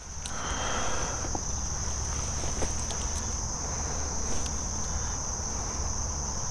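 Steady high-pitched insect chorus, a continuous drone like crickets, with a few faint clicks of small objects being handled.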